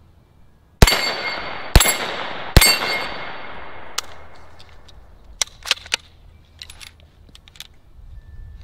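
Three shots from an HK SP5 9mm short-barrelled rifle, a little under a second apart, each followed by a long metallic ring from a struck steel plate target. A few sharp, quieter metallic clicks follow near the middle.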